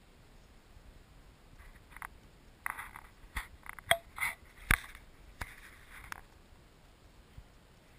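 An Alaskan Malamute and an Alaskan klee kai puppy play-wrestling on dry grass: scuffling and scraping in the grass with sniffing and mouthing, and a handful of sharp clicks and snaps between about two and six seconds in.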